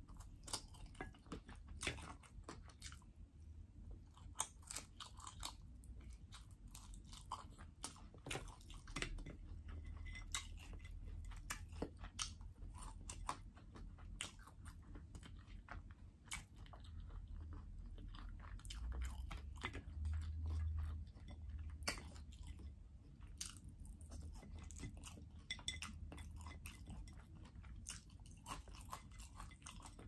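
A person chewing and biting roasted chicken and fried potatoes, with many small, irregular crunches.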